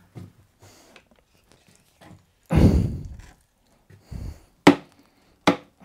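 Knocks from a screwdriver being worked against a paper shredder: one heavy thunk about two and a half seconds in, then three short, sharp clicks.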